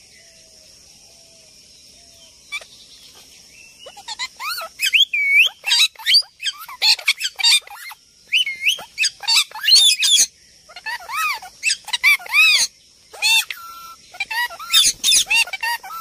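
Alexandrine parakeets screeching: after a quiet first few seconds, many arching calls follow one another in quick succession, with a couple of short pauses near the end. A faint steady high hiss runs underneath.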